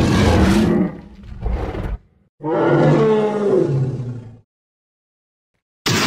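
Two dinosaur roar sound effects made to represent an ankylosaurus, each about two seconds long with a bending pitch. The first fades and flares up briefly again before stopping. After a pause, another sharp sound starts just before the end.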